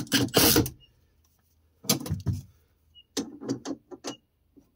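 Cordless drill-driver running in short bursts, driving a nut onto a battery terminal stud, with metal clicks of tools on the terminal between the runs.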